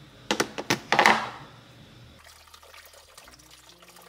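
A few quick clicks from a Cuisinart coffee maker being handled, then a short rush of water about a second in that fades within half a second.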